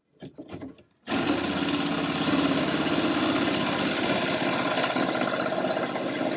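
Electric drill starting abruptly about a second in and running steadily under load, drilling a pilot hole into the Land Rover's aluminium body panel.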